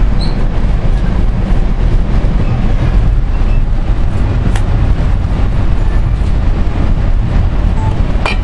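Steady low rumble of a moving passenger train heard from inside the car, with a sharp click about halfway through and another near the end.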